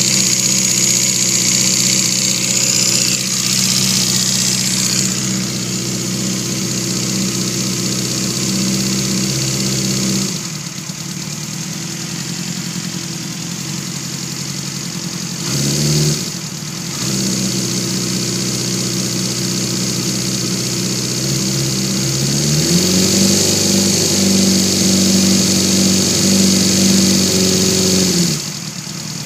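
2006 Yamaha R6's inline-four engine running with a clacking noise, which the owner traced to a faulty cam chain tensioner. The engine speed drops about ten seconds in, blips briefly up around sixteen seconds, then is held higher for about five seconds before falling back near the end.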